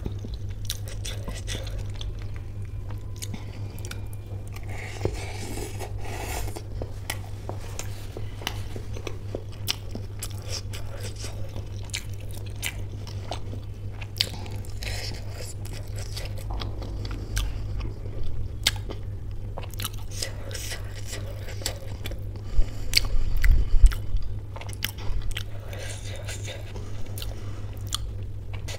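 Close-miked mukbang eating of samosa chaat with pea curry: biting and chewing with wet mouth clicks, louder for a moment about two-thirds of the way through. A steady low hum runs beneath.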